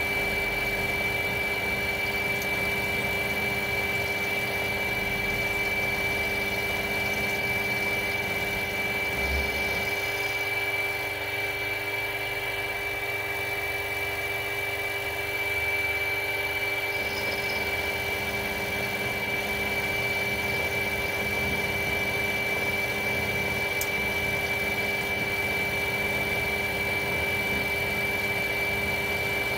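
Mini milling machine running steadily with a high whine, its end mill cutting a curved slot in a metal plate held on a rotary table. A lower hum drops away for several seconds around the middle.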